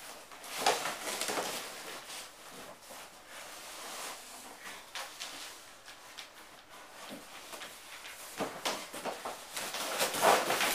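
Cardboard and plastic packaging rustling and scraping as bike parts are handled and pulled from the box, with scattered clicks and knocks. The handling comes in two busier spells, about a second in and again near the end.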